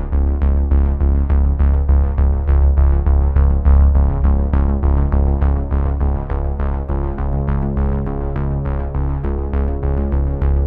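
Background electronic music with a quick, steady beat over a held synthesizer bass.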